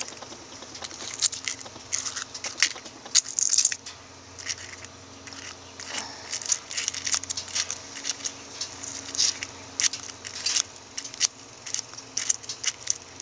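Eggshell being picked and broken apart by hand: a run of irregular small cracks and clicks, some in quick clusters, with soft squishing from the rotten contents.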